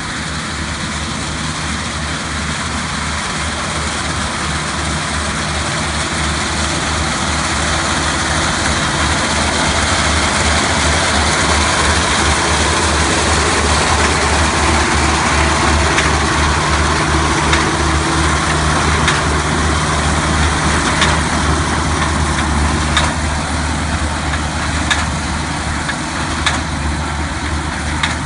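Compact tracked rice combine harvester running steadily while cutting and threshing ripe paddy: a steady engine hum with a rattling machine noise over it. It grows louder toward the middle as the machine passes close, and a few sharp clicks come in the second half.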